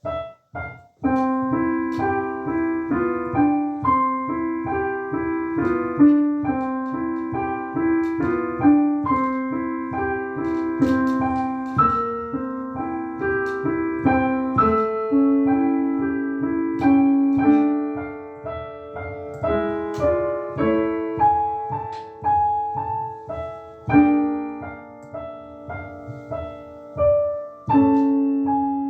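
Solo piano playing a steady flow of notes, repeated broken chords under a higher line, with a few louder struck chords near the end.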